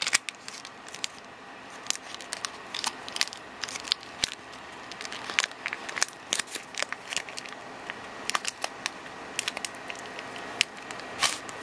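Foil wrapper of a Pokémon TCG booster pack crinkling and crackling in the hands, with many irregular sharp crackles.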